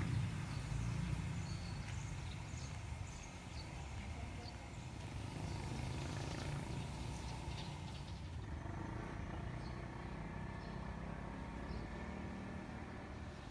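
Outdoor background: a steady low rumble like distant traffic or an engine, with a few faint short high chirps scattered through it.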